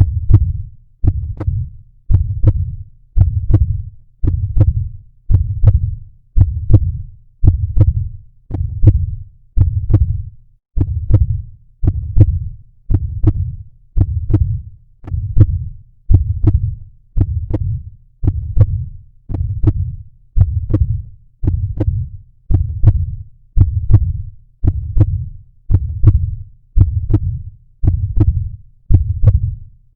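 Heartbeat sound track: low thumps in a steady rhythm of about one beat a second.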